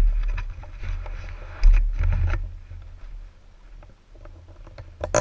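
Rubbing and bumping handling noise on a helmet-mounted action camera as the helmet is moved and pulled on, with a heavy thump about a second and a half in, then quieter scattered clicks and a sharp click near the end.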